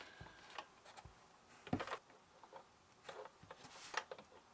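Faint handling noises of heavy battery cable and tools: a few scattered light clicks and knocks, the clearest a little before two seconds and another near the end.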